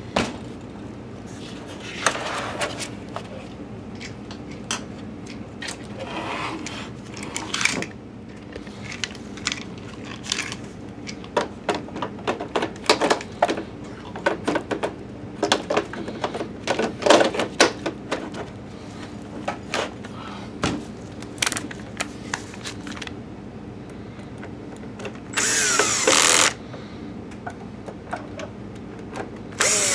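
Plastic parts clicking and knocking as the projector's lamp module is handled and slid into its bay. Near the end a DeWalt cordless drill/driver, its clutch set to the lowest setting, runs for about a second driving a lamp screw, its whine falling as it stops, and starts again right at the end.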